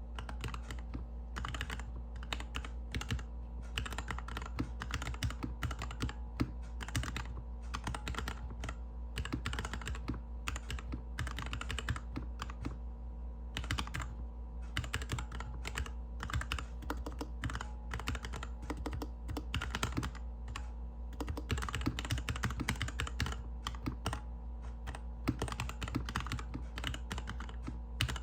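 Slow typing on a GK61X mechanical keyboard with linear Cherry MX Hyperglide Black switches, a stainless steel plate, plastic case and DSA keycaps: a steady, irregular run of keystroke clacks.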